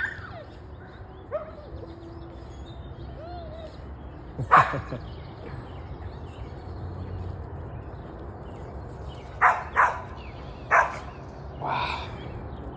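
A dog barking: one bark about four and a half seconds in, then four more in quick succession near the end, with a few faint short calls between.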